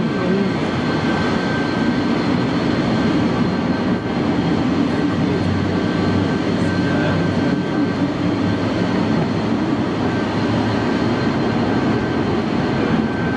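Tunisair Boeing 727's three JT8D turbofan engines running at low taxi power as it taxis, a steady jet rumble with a faint thin whine.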